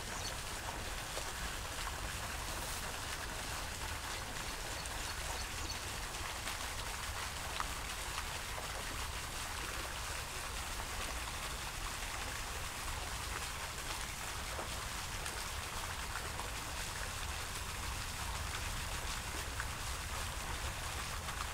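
Running water: a steady, even hiss that keeps the same level throughout.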